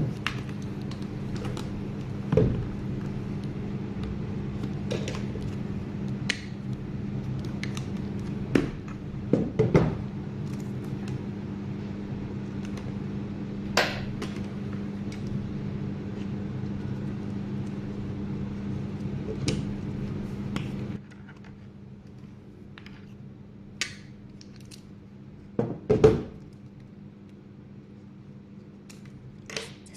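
Scattered sharp clicks and snaps of a strap buckle being handled and the original buckle being cut off, a dozen or so at irregular intervals, over a steady low hum that drops quieter about two-thirds of the way through.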